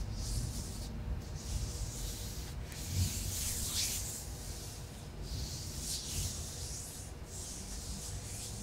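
Soft rubbing strokes in a series of gentle swishes, each about half a second to a second long with short pauses between them, of the kind made by tracing motions for ASMR personal attention.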